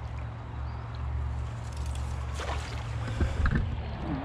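Water splashing and sloshing around a landing net as a small carp is netted and lifted out, with a few short splashes about three seconds in, over a steady low rumble.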